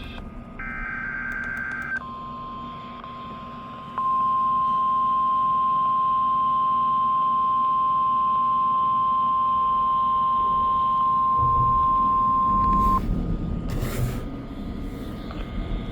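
NOAA Weather Radio weekly test signal. The last burst of the SAME digital header, a warbling two-tone electronic screech, gives way about two seconds in to the 1050 Hz weather-radio warning alarm tone. The alarm is a single steady beep that gets much louder about four seconds in and cuts off sharply near thirteen seconds, leaving radio static and a few knocks.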